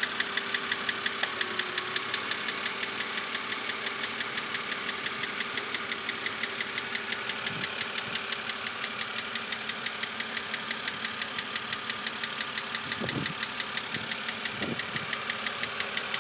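2006 BMW Z4 3.0si's N52 straight-six engine running with a rapid, even knock repeating several times a second. The knock has not been cured by replaced lifters, and the owner hopes a cylinder-head replacement will fix it.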